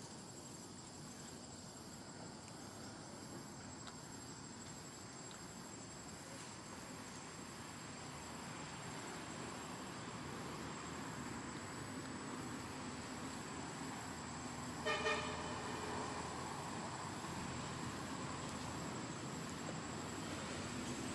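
Steady rumble of road traffic that slowly grows louder, with a short vehicle horn toot about three-quarters of the way through, over a thin, steady high insect whine.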